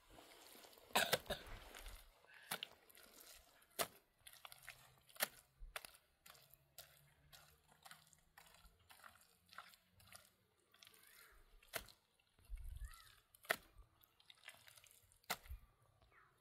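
Wet mud mortar being scooped and squished by hand in a wheelbarrow, with irregular sharp clicks and knocks, the loudest about a second in.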